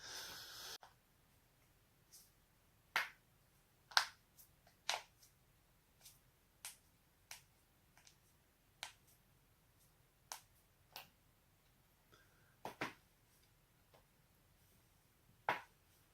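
Joints cracking: a series of sharp, separate pops, about fifteen at uneven intervals of half a second to a few seconds, several loud and the rest faint.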